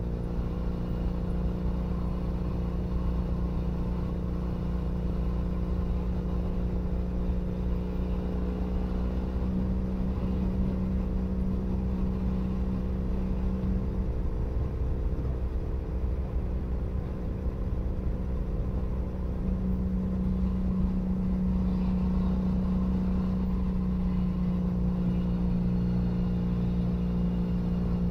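2012 Triumph Bonneville SE's 865 cc parallel-twin engine running through a British Customs Predator aftermarket exhaust, close-miked, at a steady cruise with a deep rumble. The exhaust note grows a little stronger about ten seconds in and again from about twenty seconds as the throttle is opened slightly.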